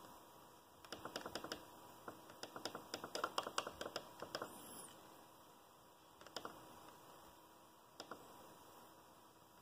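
Typing on a laptop keyboard: quick runs of key clicks from about a second in to nearly five seconds in, then a few single clicks.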